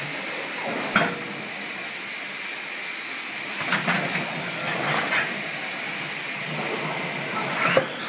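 5-gallon water barrel filling machine running: a steady hiss with several sharp clicks and short hissing bursts from its pneumatic parts, about a second in, around four and five seconds in, and near the end.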